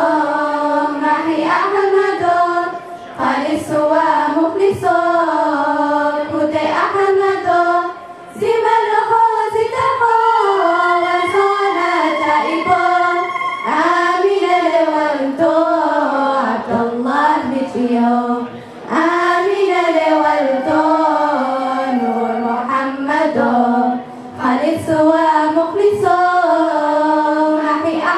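Girls' choir singing a Harari manzuma (a religious praise song) into microphones without instruments, in long sung phrases with short breaks between lines.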